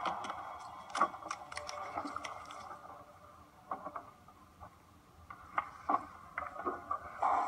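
A film's soundtrack played through a laptop's small speakers. A hissing band of noise fades away over the first few seconds, then scattered clicks and knocks, then the noise swells back near the end.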